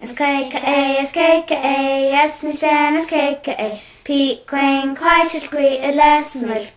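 A child singing a melody in phrases of held notes, with short breaks between phrases.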